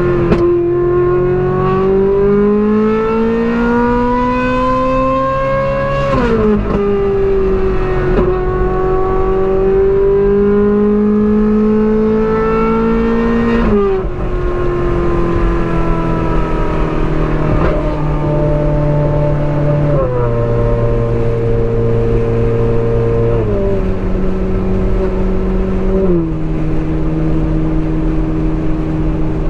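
Ferrari 458 Spider's naturally aspirated V8 accelerating under load, its note climbing steadily and dropping sharply on two upshifts, about 6 and 14 seconds in. It then cruises at a steady note, stepping lower on three more upshifts near the end.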